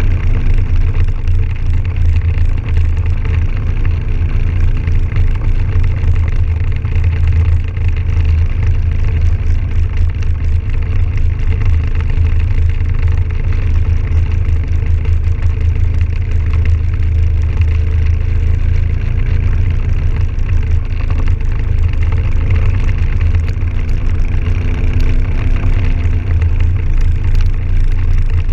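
Can-Am Outlander 1000 XT-P ATV's V-twin engine running steadily while riding, its pitch rising slightly near the end.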